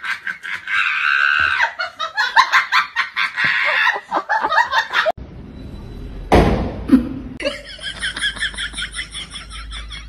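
Hearty laughter in quick, rapid bursts. After a sudden cut comes a single loud thump, then a fast run of short repeated pitched sounds.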